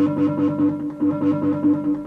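Modal Skulpt synthesizer playing a preset: a fast repeating sequence of short pitched notes, about six a second, over a steady held tone, heard through a camera's built-in microphone.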